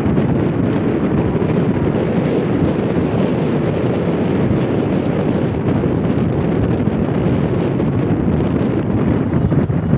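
Wind buffeting the microphone: a loud, steady low rumble that covers the scene.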